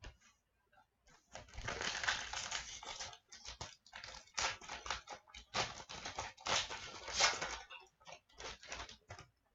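Trading card pack wrapper crinkling and tearing open, with cards handled. It comes as a run of short, irregular rustles starting about a second in.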